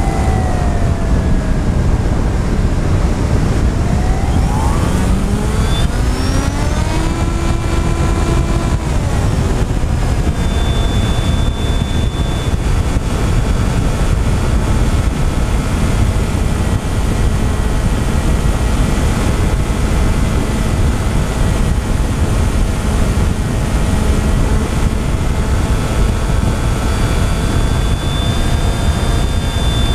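FPV quadcopter's electric motors and propellers whining over heavy wind rush. The whine rises in pitch a few seconds in, then holds steady.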